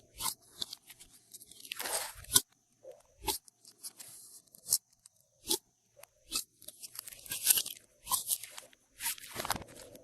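Glossy slime being squeezed and worked by hand, with irregular sticky clicks, pops and crackles.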